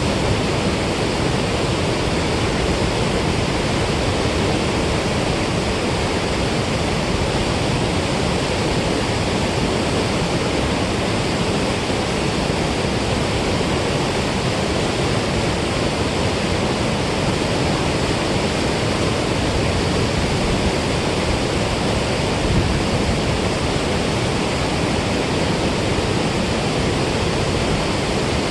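Steady rush of water released through a dam spillway: an even, unbroken noise with no breaks or changes.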